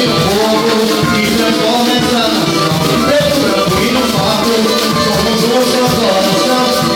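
Samba-pagode group playing: steady percussion under pitched melody lines, at an even level.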